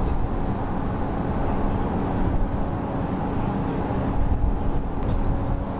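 Steady engine-like rumble with a constant low hum.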